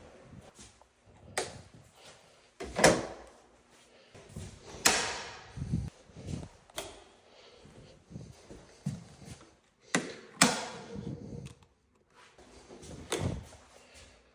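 A series of sharp knocks and bangs, about seven in all, each with a short ringing tail, with softer low thuds and rustling between them.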